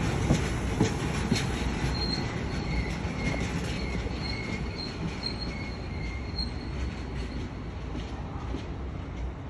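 Loaded open box wagons of a freight train rolling along steel rails, with wheels knocking over rail joints in the first second or so. A faint high-pitched wheel squeal pulses about twice a second in the middle, and the rumble fades as the last wagons move away.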